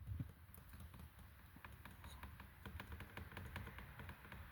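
Faint, irregular light clicks and taps, several a second, over a low rumble.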